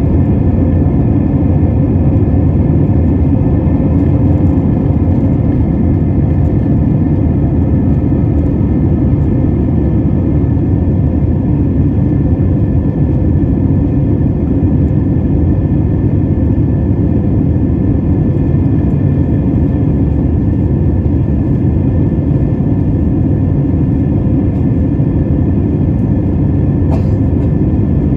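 Steady rumble of jet engine and airflow noise heard inside an Airbus airliner's cabin after takeoff, with one brief click near the end.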